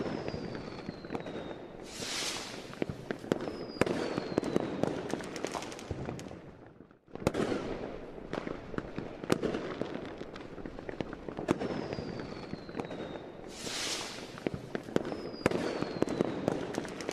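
Fireworks going off: a dense run of bangs and crackling with hissing swells and a few whistles falling in pitch. A short break about seven seconds in is followed by the same sequence starting over, as a looped recording.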